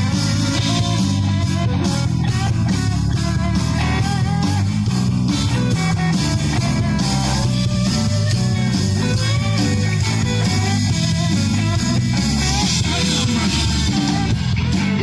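Blues-rock band playing an instrumental passage: a guitar lead with bending notes over a steady bass line and drums.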